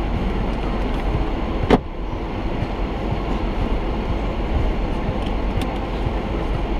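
Car moving slowly, a steady low rumble of engine and tyres heard from inside the cabin, with one sharp knock nearly two seconds in.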